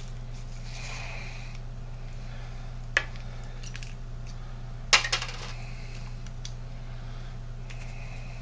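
Small metal pieces clinking on a reloading bench: a sharp click about three seconds in, then a louder clink about two seconds later followed by a few smaller rattling ones, over a steady low hum.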